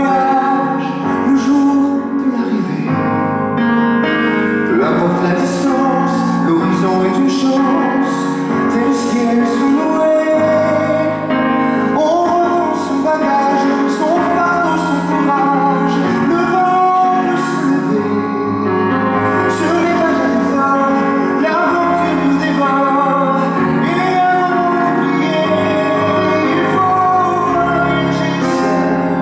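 Live pop ballad: a male singer sings a sustained, flowing melody into a microphone over piano accompaniment.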